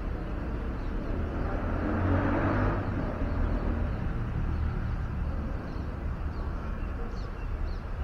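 Steady low outdoor rumble that swells for about a second around two seconds in, with a few faint high chirps near the end.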